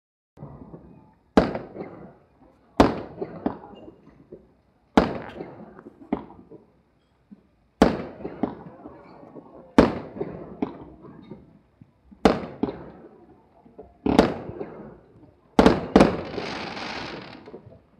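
Aerial fireworks shells bursting: about nine sharp bangs a couple of seconds apart, each trailing off in echoes. The last two come close together near the end and are followed by a crackling shower lasting a second or two.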